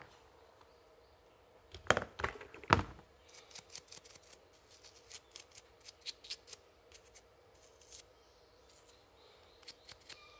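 Small parts handled and worked between the fingers: three sharp clicks about two seconds in, then a run of light, irregular clicking and scratching.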